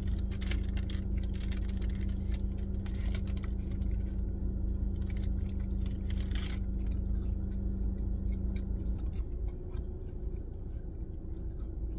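Close chewing and mouth clicks of someone eating a burger, with crackles and rustles. Underneath runs the car's steady low rumble and a steady hum that stops about nine seconds in.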